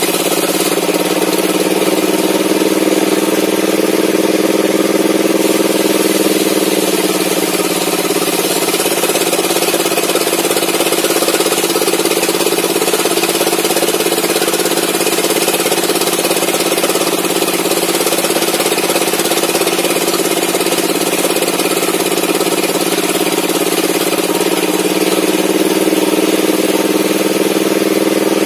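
Homemade table saw's circular blade and its drive motor running under load while ripping an old mahogany beam lengthwise. The running pitch sags as the blade bites through the cut and climbs back near the end as the slab comes free.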